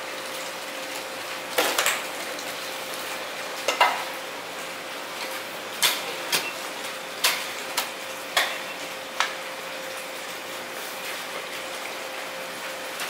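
Sharp clinks and knocks of knives and metal tools during fish cutting: about a dozen scattered strikes in the first nine seconds, over a steady hiss and a faint steady hum.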